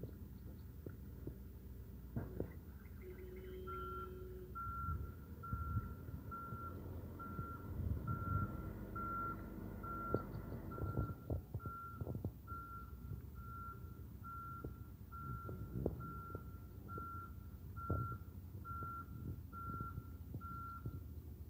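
Vehicle reversing alarm beeping steadily at one pitch, about three beeps every two seconds, starting about four seconds in and stopping near the end. Under it runs a low rumble with scattered knocks.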